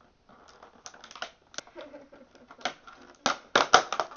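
Crinkling and crackling of headphone packaging being handled and pried open, in irregular small crackles that build to a cluster of louder crackles near the end.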